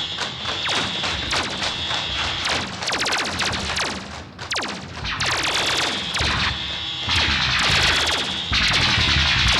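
Synthesized science-fiction laser-gun blasts, each a quick falling zap, fired back and forth over a steady high alarm tone. About seven seconds in, the firing thickens into a louder, dense clatter of blasts and crashes, which grows again a second and a half later.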